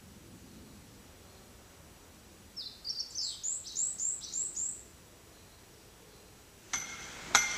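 A small bird singing a quick run of about eight high chirps, each sliding downward. Near the end come two sharp knocks, each ringing briefly.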